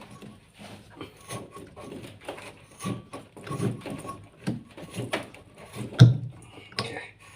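Irregular knocks, clicks and short scrapes of washing-machine parts being handled during reassembly, with one loud knock about six seconds in, over a steady low hum.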